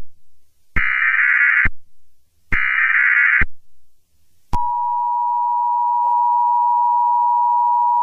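Emergency Alert System broadcast tones: the last two of three SAME header data bursts, each about a second of rapid digital screeching with a faint echo after it. About a second after the last burst, the steady two-tone EAS attention signal starts and holds.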